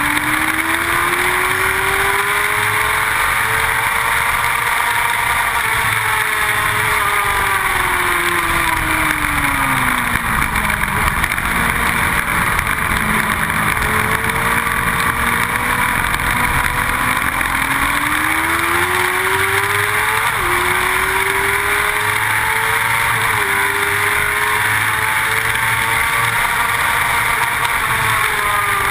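Onboard sound of a motorcycle at track speed: its engine note climbs under acceleration, falls away while slowing for a bend, then climbs again with quick drops at upshifts about two-thirds of the way through, all under a heavy rush of wind.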